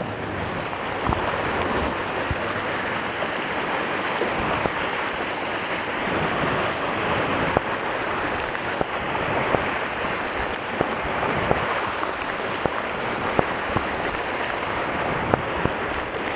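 Sea surf washing against a rocky shore: a steady wash of water noise with wind buffeting the microphone, and a few scattered short clicks.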